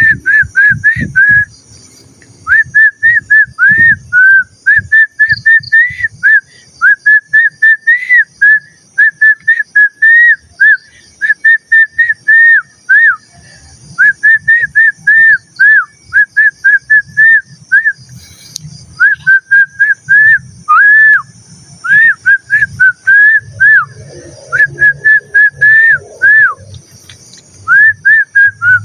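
A person whistling a tune, a quick run of short gliding notes in phrases broken by brief pauses. Crickets chirr steadily behind.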